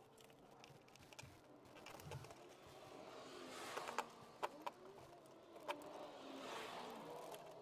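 Light clicks of the car's plastic engine undercover being handled and pushed into place, over two soft swells of hiss a few seconds apart.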